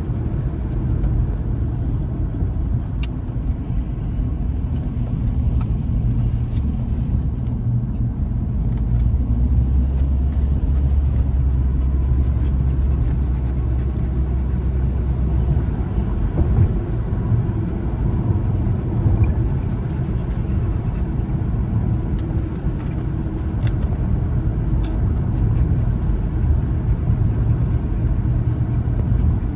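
A car driving: a steady low rumble of engine and tyres, with a deeper hum for a few seconds in the middle and scattered faint ticks.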